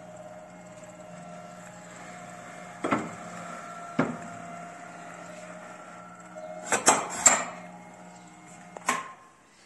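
Edge-banding machine running with a steady hum while an MDF panel is fed through and edge tape is pressed onto its end, with sharp knocks at about three and four seconds and a louder clatter of knocks around seven seconds. The hum stops about nine seconds in, right after a last knock.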